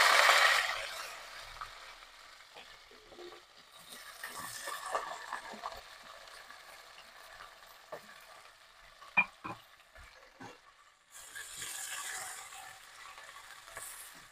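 Green chillies and sliced onions frying in hot ghee and oil in an aluminium pressure cooker. A loud sizzle as they hit the fat fades over a couple of seconds into a softer frying sizzle with a few sharp knocks, then swells again later as the onions are stirred.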